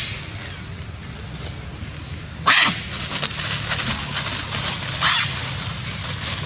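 Two short, shrill animal cries, about two and a half and five seconds in, over a steady low background noise.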